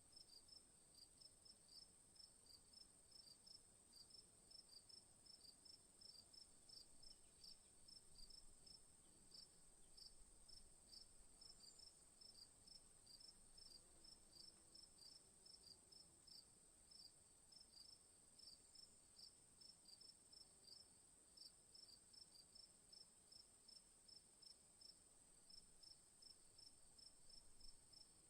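Crickets chirping in an even rhythm, a few short chirps a second, over a continuous high-pitched insect trill. Faint.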